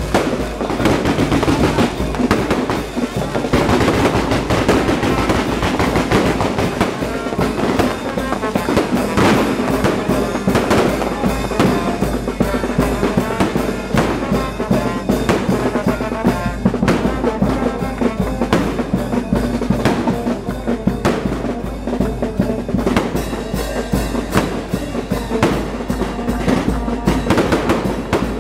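Music with brass and drums playing over the repeated bangs and crackle of aerial fireworks.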